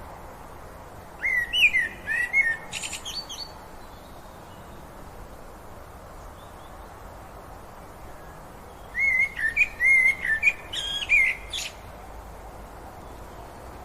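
A songbird singing two phrases of short, varied whistled notes, several seconds apart, over a steady background hiss.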